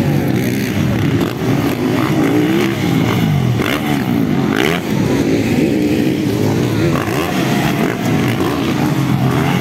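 Several motocross bikes' engines revving up and dropping back over one another as the riders go over the jumps.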